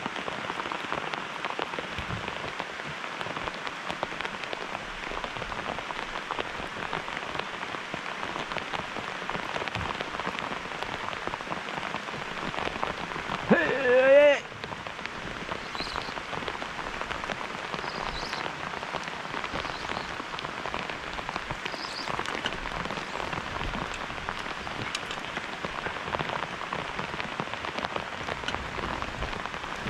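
Steady rain falling on the river surface and the drift boat. About halfway through, a person gives one short, loud vocal shout that wavers in pitch.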